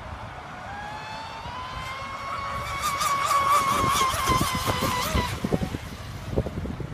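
High-pitched whine of an RC speedboat's TP 3640 2080kv brushless motor and propeller running flat out on 5S. The whine climbs in pitch over the first couple of seconds, wavers as the boat runs, then stops abruptly about five seconds in. Low wind rumble on the microphone runs underneath.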